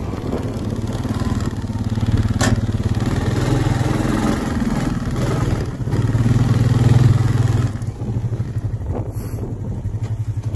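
Honda ATV engine running as the quad rolls slowly over grass and slows to a stop, then dropping to an even, pulsing idle about eight seconds in. There is a single sharp knock a couple of seconds in.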